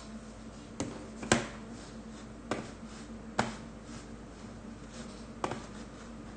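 Five sharp clicks, unevenly spaced, over a steady low hum.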